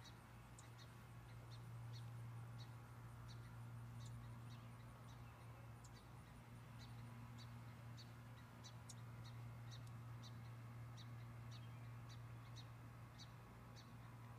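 A small songbird giving short, high chirps over and over, about one or two a second, over a steady low hum.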